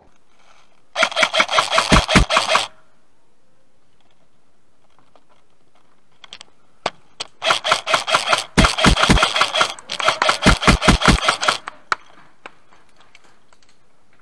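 Airsoft electric gun firing on full auto: three bursts of rapid mechanical clatter, each about one and a half to two seconds long, the first about a second in and the other two almost back to back in the second half, with a few single clicks just before them.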